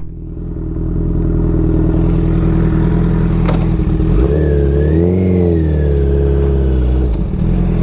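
Harley-Davidson motorcycle's V-twin engine running at low speed as the bike rolls along, revving up about four seconds in and easing back down about three seconds later.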